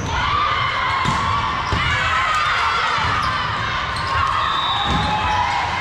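A volleyball thumping several times, a second or two apart, during play in a gym, with voices in the background.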